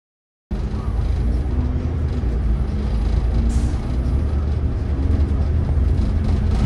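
Steady low rumble of a moving road vehicle, starting after a brief moment of silence.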